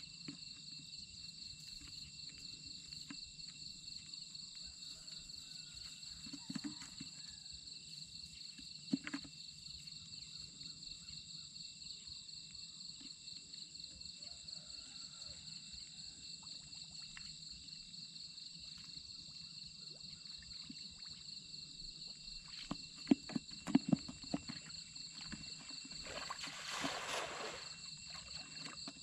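Insects chirping in a steady, rapidly pulsing high drone. A few sharp knocks come near the end, then a brief rush of splashing pond water, which is the loudest sound.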